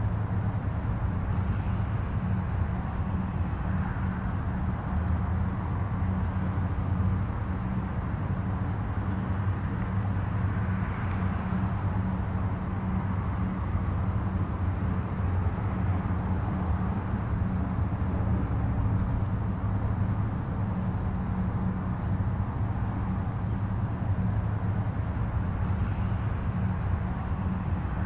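Distant highway traffic: a steady low rumble of tyres and engines, with individual vehicles swelling softly past every few seconds.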